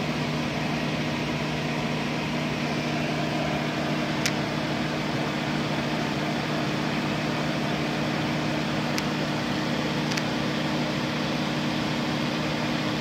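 Electric fans running in a grow tent: a steady whirring hum with several low droning tones, and a few faint clicks.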